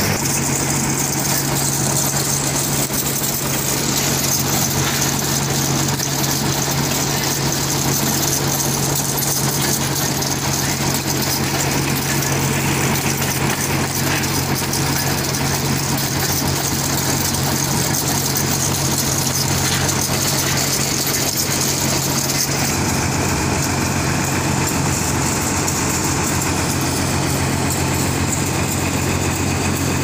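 Engine of a pile-boring drilling rig running steadily, a continuous low drone that grows deeper about two-thirds of the way through.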